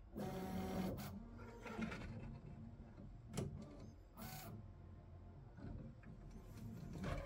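Voron 3D printer's stepper motors driving the toolhead through a series of short, quick moves, each a steady whine that starts and stops abruptly, with a sharp click about three and a half seconds in, as the tool changer parks a tool in its dock.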